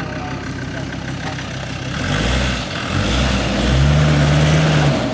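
4x4's engine idling, then revving up about two seconds in, dipping briefly, and held at higher revs for about a second before dropping back to idle near the end.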